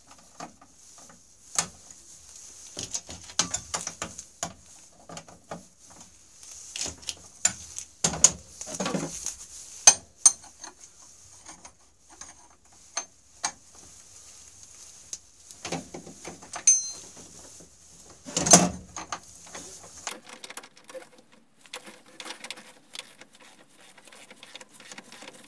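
Hand tools working a snowmobile's engine mount nuts: irregular metallic clicks, clinks and knocks of a socket wrench and breaker bar on the bolts, with a few louder clunks, the loudest a little over halfway through.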